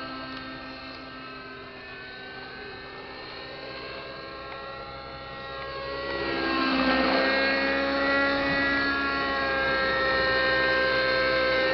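Radio-controlled model helicopter in flight, its motor and rotor making a steady multi-tone whine. About six seconds in it grows much louder as it comes closer, the pitch dipping briefly and then holding steady.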